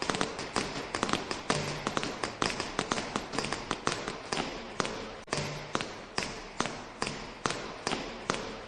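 Quick, irregular runs of light clicks and taps, several a second, that keep going with only brief gaps.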